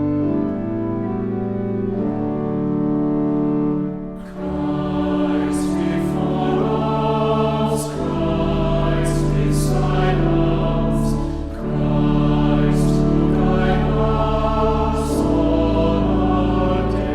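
Church organ holding chords, joined about four seconds in by a choir singing a slow sacred hymn with the organ accompanying.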